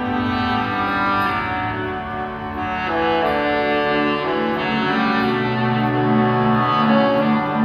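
Instrumental orchestral music with bowed strings carrying sustained melody notes, and a pulsing bass line from about five seconds in.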